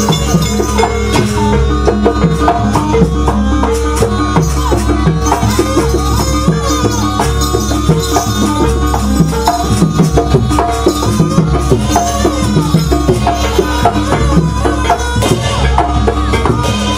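Jaranan (East Javanese horse-dance) accompaniment music: steady drumming and rattling percussion under held notes and a wavering melody line.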